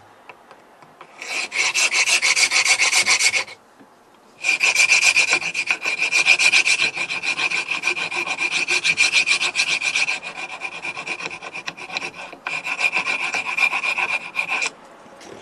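Metal hand file rasping rapidly back and forth on the edge of a natural stone tile, enlarging the switch opening so the switch fits. A short spell of strokes, a brief pause, then a long run of filing with a momentary break near the end.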